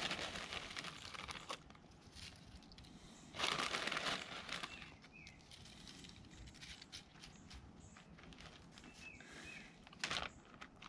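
Crinkling of a Fritos corn chip bag as the chips are poured and sprinkled over food in a pan, in two bursts about three seconds apart. Near the end, a short rustle of a plastic bag of shredded cheese being handled.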